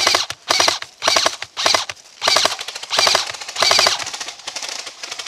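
Airsoft rifle firing short full-auto bursts, seven in quick succession about two a second, each a rapid rattle of shots, then quieter, more distant firing near the end.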